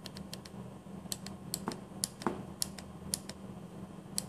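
Push buttons on a pressure transmitter's display keypad being pressed repeatedly with a thumb: a quick, irregular series of small clicks, a dozen or so, while the unit setting is stepped through.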